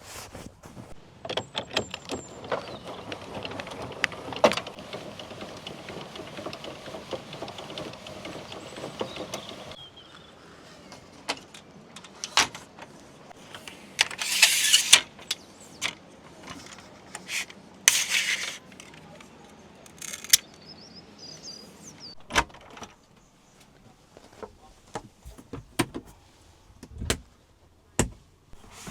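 Clicks, knocks and clatter of camping gear and vehicle doors being handled while setting up at a motorhome, with a steadier mechanical noise for about the first ten seconds and two short rushing noises in the middle.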